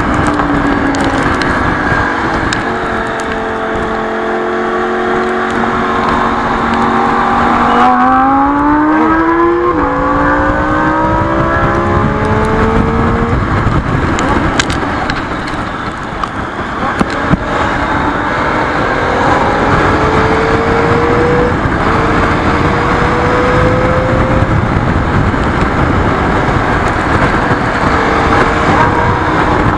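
Triumph Street Triple's three-cylinder engine pulling hard at highway speed under steady wind rush on a tank-mounted camera. Twice its pitch climbs in a long sweep, each sweep broken by a quick upshift.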